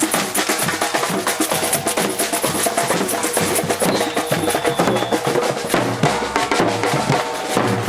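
Percussion group playing live: many drums beating a fast, dense rhythm, with sharp clicking strokes over low bass drum beats.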